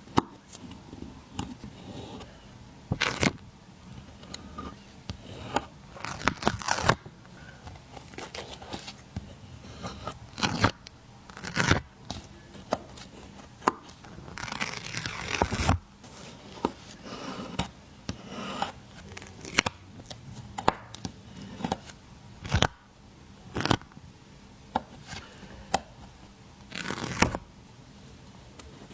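Stickers being peeled off their backing and pressed down close to the microphone: short ripping peels, sharp clicks and taps, with a longer rustling stretch about halfway through.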